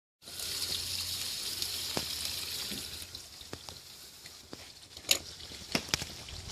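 Water rushing and splashing in a steady hiss that fades after about three seconds, followed by a few sharp clicks and knocks.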